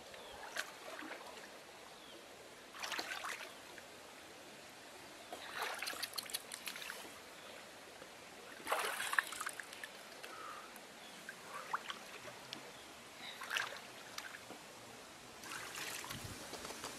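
Water splashing and trickling in several short bursts, with scattered small clicks.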